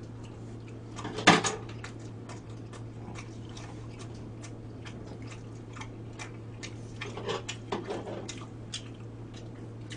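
Eating at a table: chopsticks and spoons clicking and scraping on ceramic dishes, with chewing, over a steady low hum. There is one louder noise about a second in.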